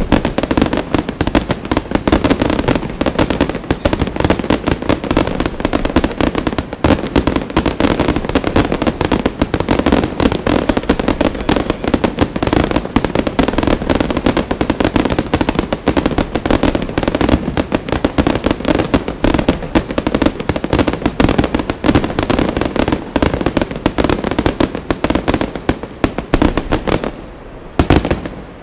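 A daylight aerial fireworks display firing a rapid, almost unbroken barrage of bangs and crackling explosions, with a short lull near the end.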